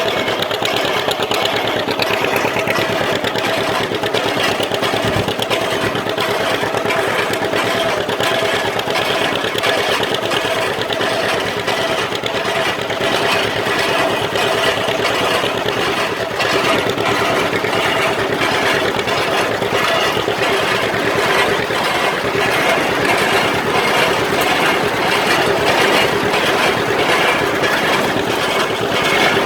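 Tractor engine running steadily while pulling a working hay baler, with a rapid, even mechanical clatter from the baler throughout. The clatter becomes more distinct about halfway through.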